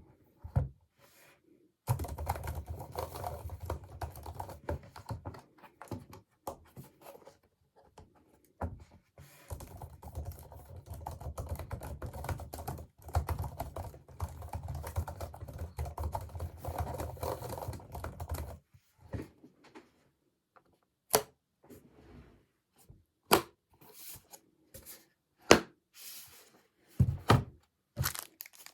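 Typing on an Apple Magic Keyboard for iPad: two long runs of rapid keystrokes, then scattered single clicks and knocks.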